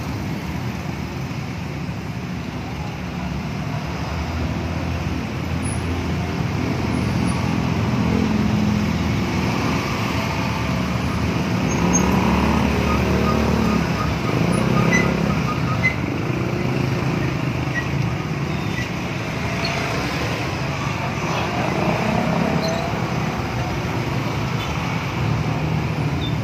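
Road traffic in a jam: vehicle engines running in slow, congested street traffic, a steady rumble with no single vehicle standing out.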